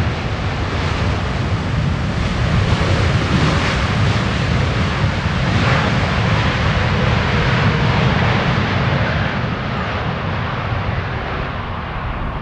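Jet airliner passing on landing approach: its engine roar swells over the first few seconds, holds, then eases toward the end. Gusting wind rumbles on the microphone underneath.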